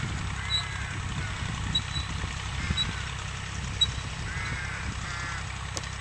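Vintage tractor engine running steadily at low revs while pulling an old seed drill. Short honk-like squeals sound over it about five times at irregular intervals.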